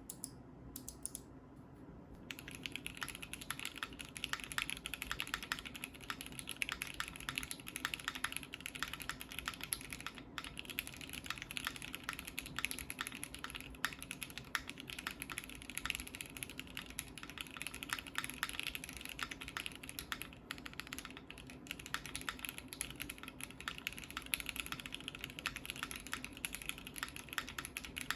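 Typing on a Keychron Q2 mechanical keyboard with lubed SP-Star Meteor White switches, Domikey keycaps and a polycarbonate plate, with the plate and case foam removed. A few separate key presses, then fast continuous typing from about two seconds in.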